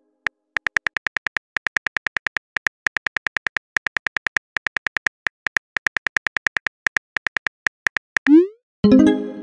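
Texting-app keyboard sound effects: rapid taps of a message being typed, about seven a second with short pauses. Near the end comes a rising whoosh as the message is sent, then a short pitched pop tone.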